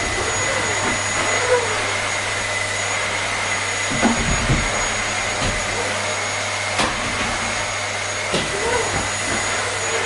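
Vacuum cleaner running steadily: a dense, even hiss with a thin high whine over it, broken by a few faint knocks.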